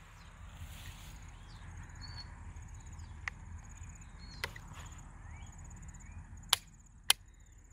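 Rifle action clicking as cartridges that had been through a washing machine fail to fire: four sharp metallic clicks with no shot, the two loudest near the end about half a second apart. Faint bird chirps and a steady insect buzz behind.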